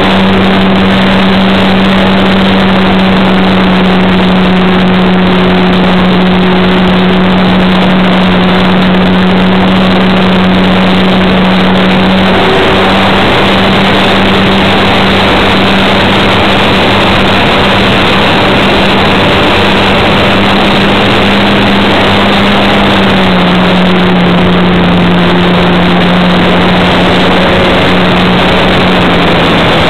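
RC model airplane's motor and propeller running steadily, heard from a camera mounted on the plane, over heavy wind rush. The drone's pitch steps down slightly about two-thirds of the way through and again near the end, as the throttle is eased.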